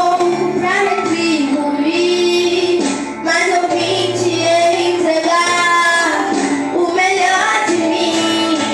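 A woman's voice singing a worship song over instrumental backing, holding long notes with vibrato.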